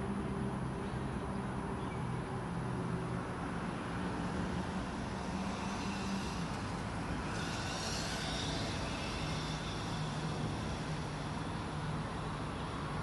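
Steady background rumble of traffic with a low engine hum that drops in pitch midway, and a brief swell of hiss about seven to nine seconds in.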